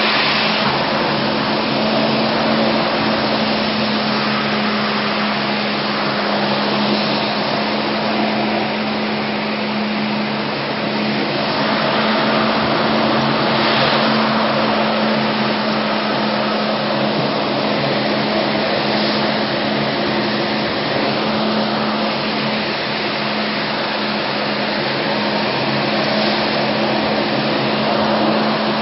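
Ride-on floor cleaning machine running steadily: a constant rushing noise with a steady hum underneath.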